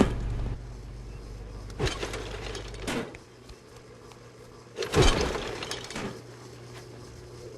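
Heavy crashing impacts, about four of them, the loudest about five seconds in, as a Trane air-conditioning unit is battered in a durability test. A low steady hum runs beneath and drops away about three seconds in.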